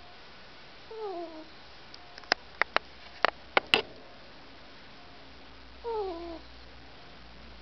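Pet ferret snoring in its sleep: two short squeaky breaths that fall in pitch, about a second in and about six seconds in, with a run of sharp clicks between them.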